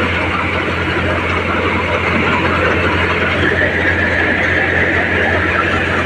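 NVT thresher driven by a John Deere 5050D tractor, running steadily while threshing sorghum (jowar): a loud, unbroken machine noise with the tractor engine's low hum underneath.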